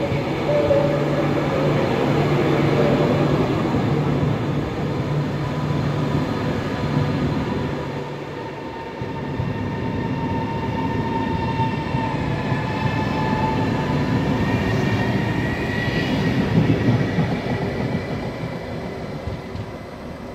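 PKP Intercity ED250 Pendolino electric multiple unit moving through the station: a steady low electric hum at first, then whining tones that shift in pitch. The sound is loudest a few seconds before the end and then fades.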